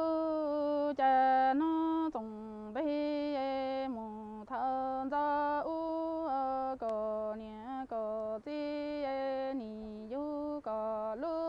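Music: a single melody line of long, steadily held notes that step abruptly between a few pitches, with short breaks between phrases.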